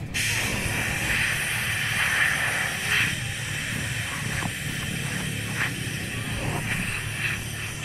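A loud, steady hiss over the low, steady hum of a running ATV engine.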